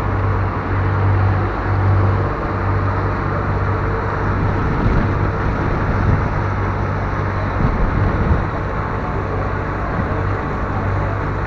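Ferry engine running steadily under way, a low hum over the rush of the churning wake and wind.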